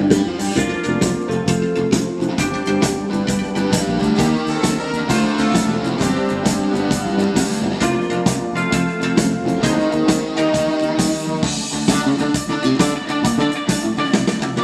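Music from a vinyl record on a turntable, played through a freshly restored Accuphase E-202 integrated amplifier and its loudspeakers: a full band with a steady beat.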